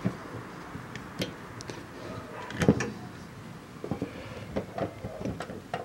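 Hand rivet gun being squeezed on a rivet in a car's fuel-filler door hinge: a series of sharp metallic clicks and clacks, the loudest a little under three seconds in, with quicker clicks in the last two seconds.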